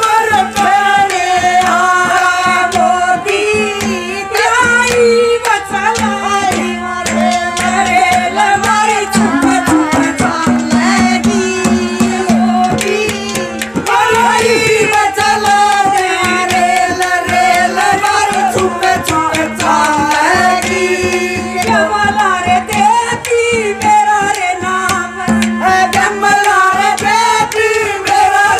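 Woman singing a Haryanvi folk song into a microphone over a PA, with percussion accompaniment and a steady held drone note beneath the melody.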